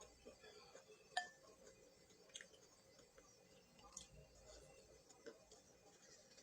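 Faint, scattered light clicks of eating utensils on a dish, one sharper clink with a short ring about a second in, over near silence.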